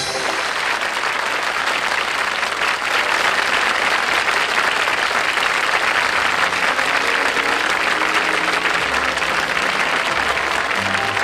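Studio audience applauding at the end of a song, steady throughout. Soft band music starts up under the applause about halfway through.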